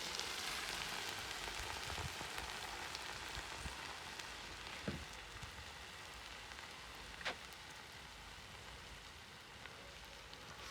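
Plov sizzling in a kazan at the end of its cooking, the lid off: a steady hiss of hot oil and steam that slowly fades, with a few sharp pops, the clearest about five and seven seconds in.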